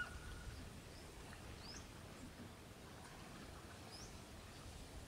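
Faint rural ambience: a low steady rumble with a few short, high rising bird chirps, a couple of seconds in and again near the end.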